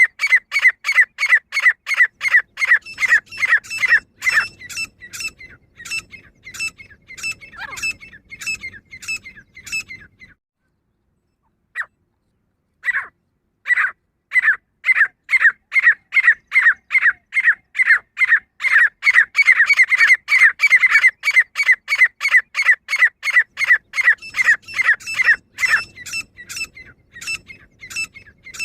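Female grey francolin calling: a fast, steady run of short, repeated notes, about three a second. About ten seconds in the run stops for a few seconds, broken only by a couple of single notes, then starts up again.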